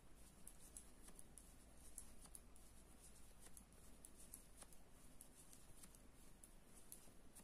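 Faint, irregular light ticks and rustling of metal knitting needles and yarn as garter stitch is knitted by hand, several small clicks a second.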